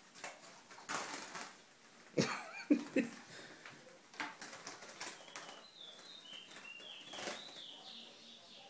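A small caged finch flutters its wings, with several sharp knocks and rustles against the cage during the first few seconds. A run of short high chirps follows about two thirds of the way through.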